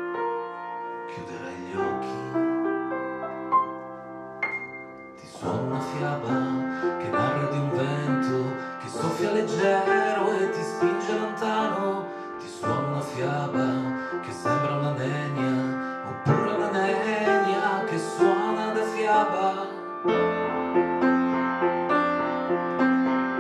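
Piano played live: a sparse, quieter passage, then about five seconds in a fuller, louder run of dense chords that carries on.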